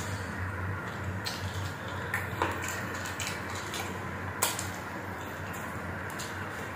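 Close-up eating sounds of a person eating by hand: chewing and wet mouth clicks, with fingers pressing and picking at rice, over a steady low hum. Two sharper clicks stand out, about two and a half and four and a half seconds in.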